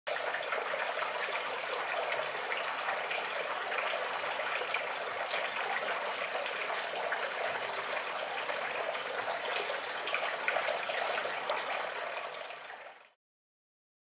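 Water from a tiered cement tabletop fountain pouring and splashing steadily into the basin below, fading out near the end.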